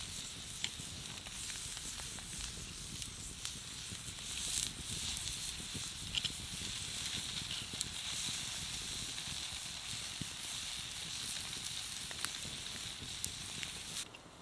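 Slices of beef sizzling on a flat stone heated in a campfire: a steady sizzle with occasional small pops. Near the end the sizzle falls away suddenly, leaving the quieter hiss of the fire.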